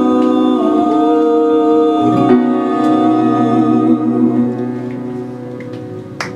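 Live acoustic music: voices singing held notes over grand piano and acoustic guitar chords, with the chord dying away in the last couple of seconds.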